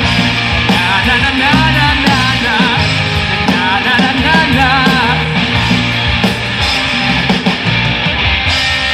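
Live rock band playing: electric guitars, bass, drums and keyboard, with a wavering lead melody over the band for about the first five seconds.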